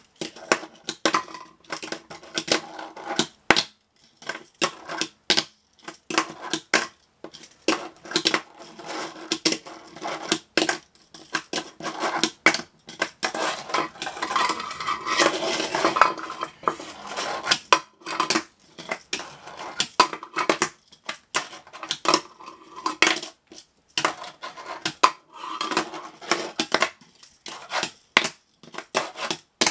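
Tech Deck fingerboard clattering on a desk and a plastic quarter-pipe ramp: many sharp clicks and clacks of the small wheels, trucks and deck knocking and landing, with a denser run of rattling about halfway through.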